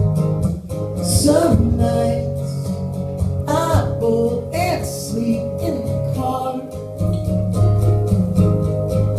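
Live song performance: an acoustic guitar strummed in a steady rhythm, with a man's singing voice coming in briefly a few times.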